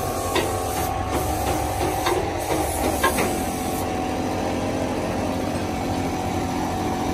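A machine or engine running steadily, with a few short metallic knocks.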